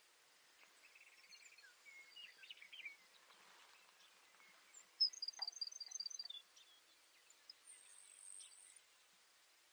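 Baird's sparrow singing once about halfway through: a quick run of about seven high, evenly spaced notes. Softer chirps and a short trill come earlier, and a thin high buzz near the end.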